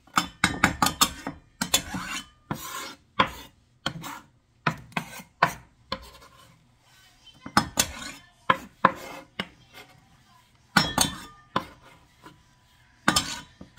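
A utensil scraping, tapping and clinking against a cutting board and bowl as chopped onion and bell pepper are moved into the bowl. The strikes come irregularly, and a few leave a brief ring.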